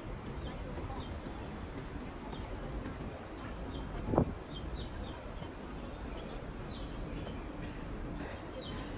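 Outdoor nature ambience: a steady high insect drone with short, repeated bird chirps over it, and a single thump about four seconds in.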